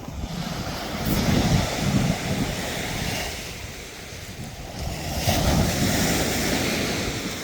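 Surf breaking on the beach, two waves swelling and washing in a few seconds apart, with wind buffeting the microphone.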